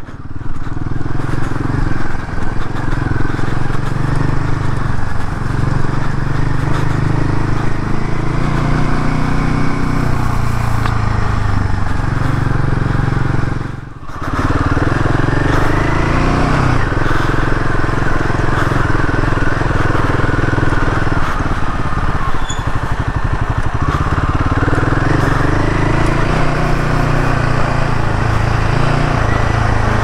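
Royal Enfield Himalayan 450's single-cylinder engine running as the bike is ridden off-road, its note shifting up and down with the throttle, with a brief drop in loudness about halfway.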